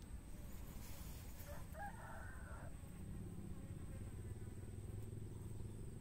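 A rooster crowing once, faint, lasting about a second, over a steady low rumble.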